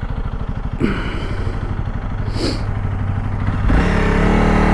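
Honda CRF300L Rally's single-cylinder engine chugging at low revs, then revving up louder under acceleration about three and a half seconds in.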